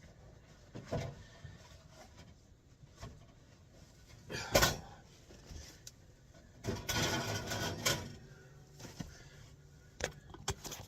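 Things being taken out of a motorhome's oven and set down: scattered light knocks, a sharp clatter about four and a half seconds in, and a rattling scrape lasting about a second a couple of seconds later.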